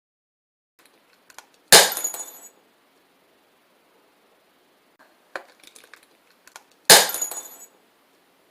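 Glass-cup breaking sound, made as a trick effect: two loud sudden crashes about five seconds apart, each followed by a short rattling, tinkling tail and led in by a few small clinks.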